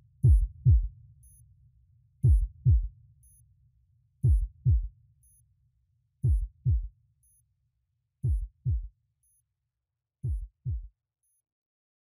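Electronic heartbeat effect: pairs of deep thumps in a lub-dub rhythm, one pair every two seconds, each pair quieter than the last. A low rumble under them dies away, and the beats stop near the end.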